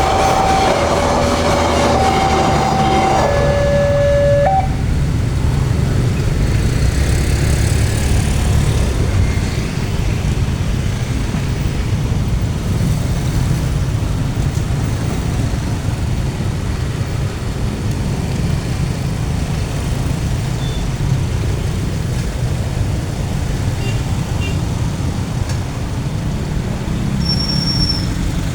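Railroad level-crossing warning alarm alternating between two tones about once a second, cutting off about four and a half seconds in. A steady low rumble of passing traffic runs underneath throughout.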